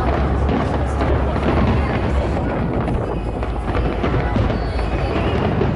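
Fireworks display going off as a steady rumble of overlapping bursts, with music playing alongside.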